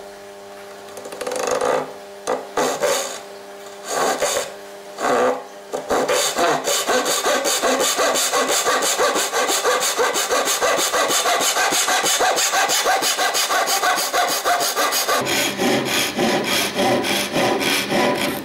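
Small fine-toothed hand saw cutting across a softwood block. A few short starting strokes open the kerf, then from about six seconds in it saws steadily with quick back-and-forth strokes until it stops just before the end.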